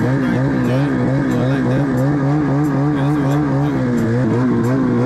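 Ski-Doo snowmobile engine running under way, its pitch wavering up and down about three times a second as the machine rides along a trail.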